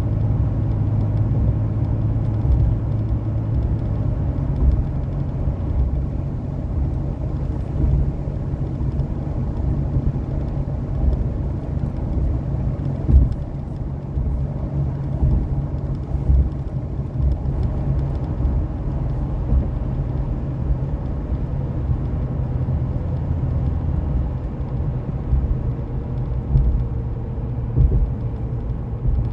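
A vehicle driving along: steady low engine hum and road rumble, with occasional bumps and jolts.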